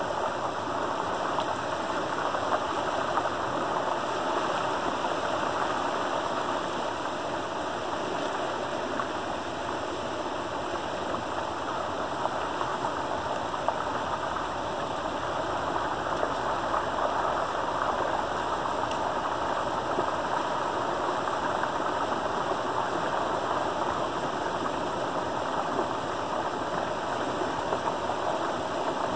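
Water rushing steadily through a breach in a beaver dam of sticks and mud, pouring over in a small waterfall and churning in the creek below.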